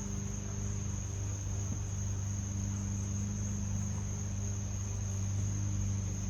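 Steady insect chorus, a continuous high-pitched trill, over a steady low hum.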